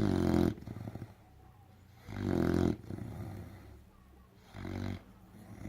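American bulldog snoring loudly in its sleep: three snores a little over two seconds apart, the third shorter and quieter.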